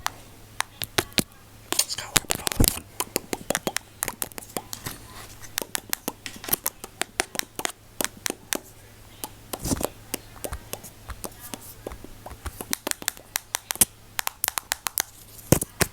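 Close-miked ASMR trigger sounds: quick, irregular sharp clicks and crackles, some bunched in rapid clusters and some spaced apart.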